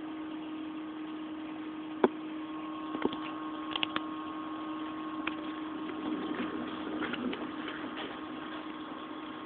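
Steady hum of aquarium equipment, with a few sharp clicks about two, three and four seconds in.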